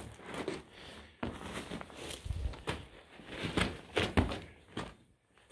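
Footsteps crunching and scraping on loose broken rock, an uneven run of steps that fades out near the end.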